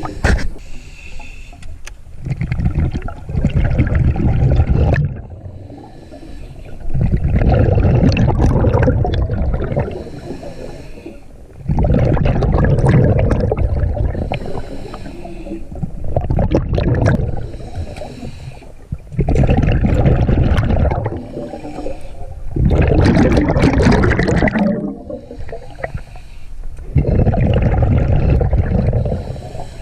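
Scuba diver breathing through a regulator underwater: about eight loud, low, rumbling bursts of exhaled bubbles come every few seconds, with quieter stretches between them.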